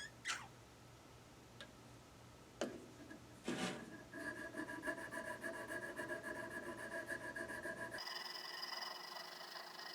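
A thin oiled 600-grit polishing stone rubbed back and forth on the steel of an auger bit, polishing its cutting surfaces. A few scattered squeaks and clicks come first, then from about four seconds in a steady run of quick rubbing strokes, several a second, with a faint squeaky ring.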